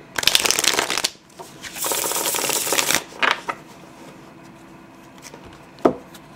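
A deck of tarot cards riffle-shuffled twice, each riffle a loud rustling flutter of about a second, followed by a short flutter. Near the end there is a single light knock as the squared deck is set down on the table.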